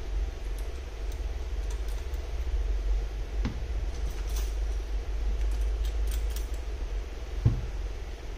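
Steady low background hum, with a few small clicks and one sharper knock near the end as small plastic screen clamps are clipped onto the edge of a tablet and set against it on a silicone work mat.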